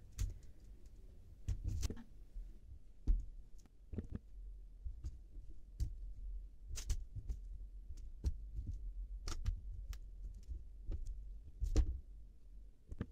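Boiled potatoes being crushed with the bottom of a drinking glass on a baking tray: irregular dull thuds and light clicks of the glass knocking on the tray, about one or two a second.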